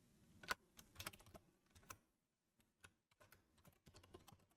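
Faint computer keyboard typing: a run of irregular keystrokes, thickest in the first two seconds and sparser after, as a name is typed in.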